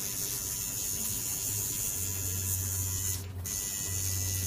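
Electric tattoo machine buzzing in runs, switching on and off a few times as the needle works on skin.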